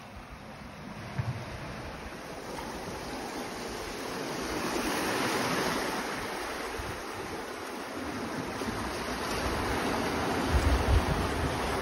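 Sea waves washing in over a rocky shore, the wash swelling a few seconds in and again near the end. Wind buffets the microphone with a low rumble near the end.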